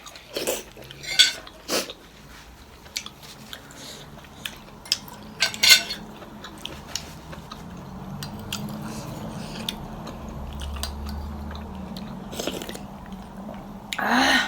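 Cutlery clicking and clinking against bowls and plates during a meal of thenthuk noodle soup, with bites and chewing in between. The clicks come in scattered clusters, several in the first two seconds and again about five to six seconds in.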